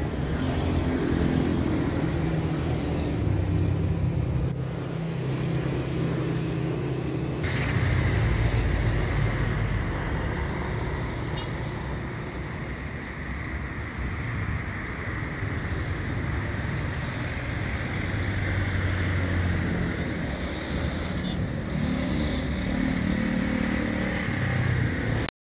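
Steady outdoor engine and vehicle rumble with shifting low engine tones. The background changes abruptly about seven and a half seconds in.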